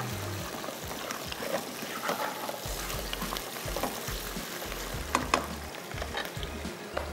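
Sliced mushrooms sizzling in hot oil in a nonstick frying pan as a plastic spatula stirs them, scraping and tapping the pan now and then.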